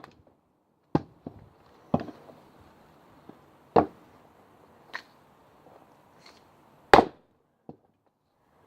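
Single-bit axe striking a log of hard thorn wood on a chopping block: several separate sharp chops and knocks, the loudest about seven seconds in.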